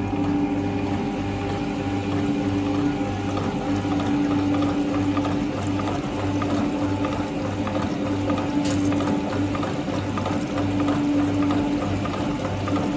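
Printing-plate washing machine running, with a steady hum holding one constant tone over the wash of cleaning liquid being pumped through it. Underneath, a low throb repeats about one and a half times a second.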